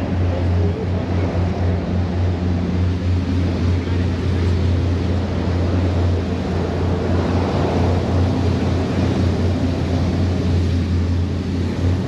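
Engines of a 1,000 hp 35-foot Fountain speedboat running steadily under way, a deep even drone, with wind and water rushing past the hull.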